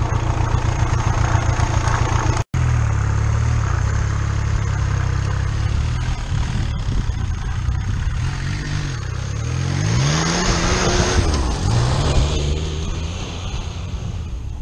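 Diesel motorcycle powered by a VW Lupo 3L 1.2-litre three-cylinder turbo-diesel engine, running and driving past. About two and a half seconds in the sound breaks off for an instant; later the engine note rises and falls again as it is revved and passes by.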